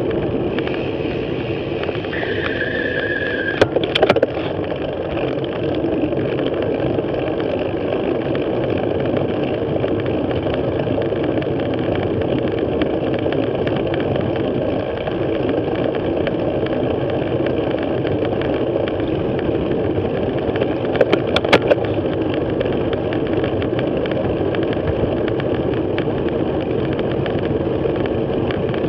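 Steady riding noise picked up by a bicycle-mounted action camera at about 20 km/h: wind rushing over the microphone and tyre hum on the road. There are short clusters of clicks and rattles about four seconds in and again about twenty-one seconds in, and a brief high, steady whine just before the first.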